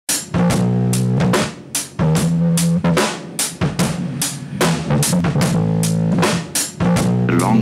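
Rock band music: a drum kit playing a steady beat of bass drum and snare hits over held low notes.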